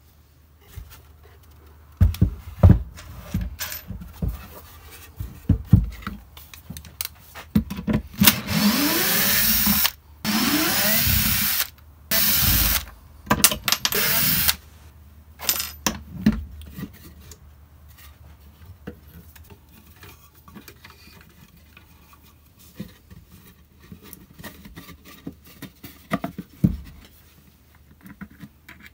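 Cordless drill-driver driving screws into the wooden panel of a nest box: four runs of one to two seconds in the middle, the motor's pitch sliding. Knocks and clatter of wood and tools being handled come before and after.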